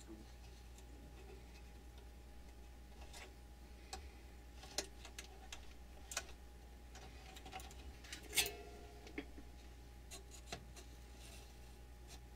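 Faint room tone with a steady low hum, broken by a scattered handful of small, sharp clicks and ticks, the loudest about eight seconds in.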